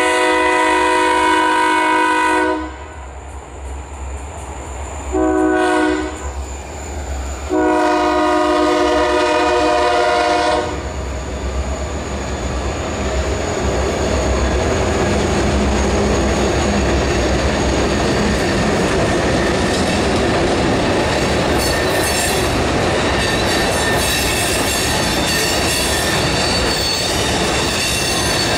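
Freight locomotive's air horn sounding the grade-crossing signal: the end of a long blast, a short blast, then a final long blast. The train then rolls past with a growing rumble and wheel-on-rail clatter.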